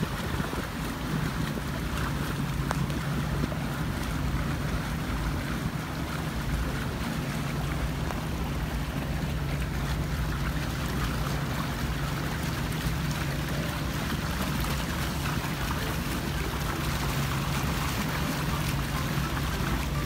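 Outboard engine of a small tour speedboat running at a steady cruising speed, a constant low drone, with water rushing along the hull.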